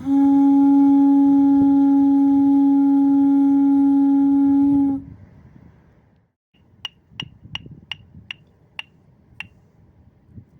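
A single steady, pitched musical tone held for about five seconds, then cut off abruptly. After a short pause come about seven short, sharp ticks, the gaps between them growing longer.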